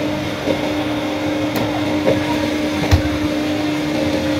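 Chairlift drive machinery humming steadily on one pitch, with a single knock about three seconds in.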